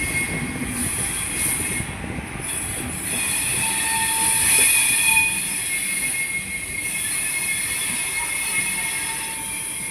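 Train wheels running on the rails, a steady rumble and hiss with a thin high-pitched wheel squeal that fades in and out, and a lower squealing tone about four seconds in. Heard from the open doorway of a moving passenger coach.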